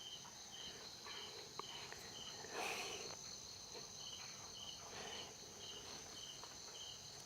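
Crickets chirping faintly in an even pulse of about two chirps a second, over a steady high insect trill. A brief rustle comes about two and a half seconds in.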